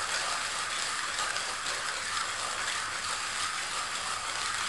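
Rosco hand coffee grinder being cranked, its cutter grinding coffee beans: a steady, rapid rattle, mostly high-pitched.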